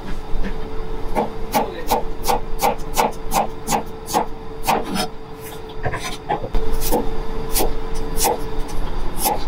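Chef's knife slicing garlic cloves on a white cutting board: a quick, even series of knife taps at about three a second, a short pause midway, then another run of taps. A steady hum runs underneath.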